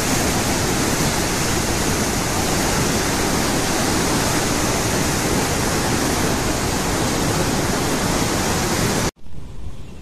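Fast, muddy river water churning in white water past concrete piers: a loud, steady rushing. It stops abruptly about nine seconds in, leaving a much fainter hiss.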